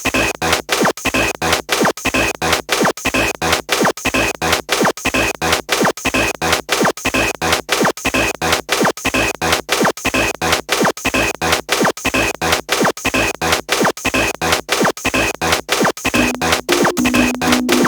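Korg Kaossilator synthesizer playing harsh electronic noise techno: a loud, choppy pattern of noise bursts at about four a second. Near the end a steady low synth tone comes in under the chopping.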